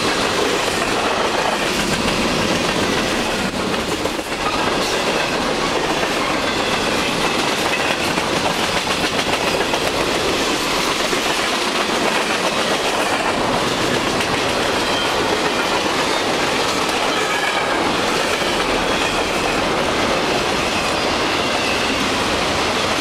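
Freight cars, covered hoppers then autorack cars, rolling past at speed close by. Their steel wheels make a steady rumble and a clickety-clack on the rail joints.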